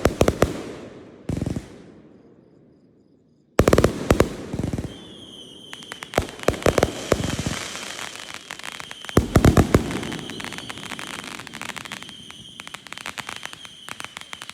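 Fireworks display: aerial shells bursting with sharp bangs near the start, at about a second and a half, at about three and a half seconds and again at about nine seconds. From about five seconds on there is dense crackling, with a steady high whistle running under it.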